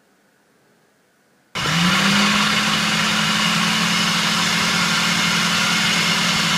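Electric food processor motor switching on about a second and a half in, spinning up quickly and then running steadily at speed as its blade beats raw eggs.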